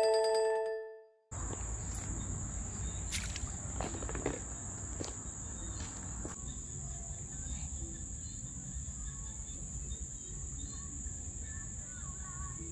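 A short glockenspiel-like jingle dies away about a second in. Then insects, like crickets, keep up a steady high-pitched drone over a low rumble, with a few soft clicks in the first half.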